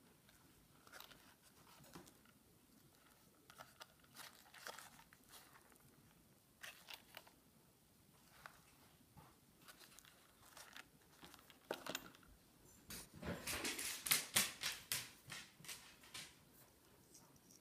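Hands handling AKG N20U in-ear earphones, their cable and a carrying case on a woven table mat: scattered faint rustles and small clicks, with a denser, louder run of rustling and clicking about three quarters of the way through.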